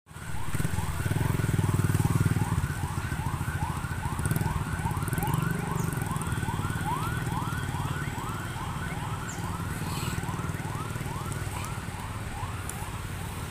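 Police vehicle siren in a fast yelp, a rising sweep repeated about two and a half times a second and slowly fading. A steady low rumble runs underneath.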